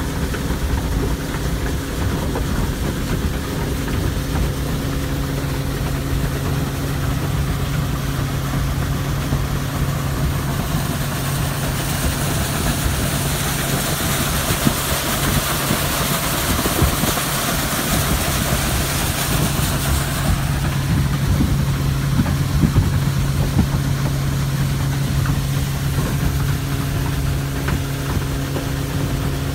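A C-Dory 23 Venture's outboard engine runs steadily at cruising speed, heard from inside the cabin as a constant hum under the rush of water along the hull. For about ten seconds partway through, the hiss of wind and water grows louder, then drops back.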